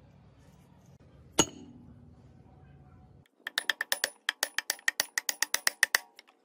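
A single sharp metallic clank, then a fast run of about twenty ringing hammer blows on a steel rod set in the bearing bore of a rusty cast-iron gearbox housing, driving out a shaft or bearing.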